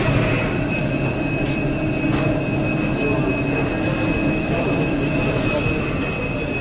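Steady industrial plant ambience: a continuous machinery rumble with a thin, steady high-pitched whine over it.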